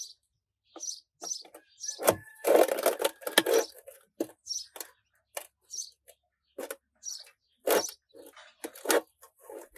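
Irregular short scrapes and knocks of a flat sheet being pressed and shifted against the rim of a homemade steel-bucket and cement stove, loudest in a run of dense scraping around the third second.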